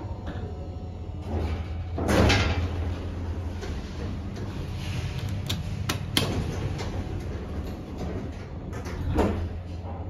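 Mitsubishi Electric lift car doors sliding, with a loud swell of door movement about two seconds in and another shortly before the end. Two sharp clicks in between as the car's buttons are pressed, over a steady low hum of the lift.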